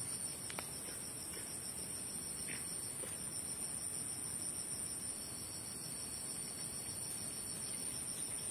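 Steady, high-pitched insect chorus: a continuous buzz held at two pitches without a break.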